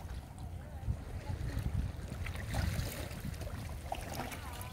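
Wind buffeting the microphone at the seashore, a gusty low rumble over the hiss of small waves on the water.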